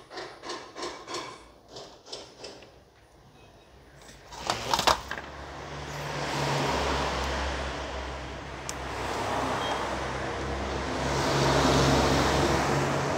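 Wires and insulating tape being handled on the back of an LED sign panel: a run of quick crackling clicks over the first few seconds, then a few sharp knocks about five seconds in. A steady rushing noise with a low hum follows and swells twice.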